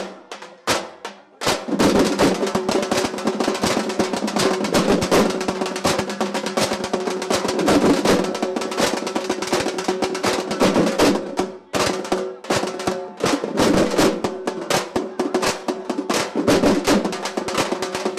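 A group of drummers beating large double-headed drums with sticks in a fast, dense rhythm of many overlapping strokes. The beating is sparse for the first second or so, then comes in full, with a brief break near the middle.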